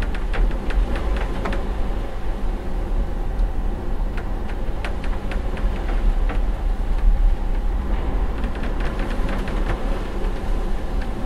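Inside a ferry's cabin on a fairly rough crossing: the ship's engine gives a steady, deep rumble and hum. Clusters of small clicks and rattles come and go over it, strongest near the start and again in the last few seconds.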